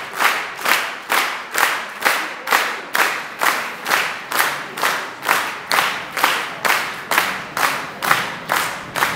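Audience applauding in unison, clapping together in a steady rhythm of about two and a half claps a second.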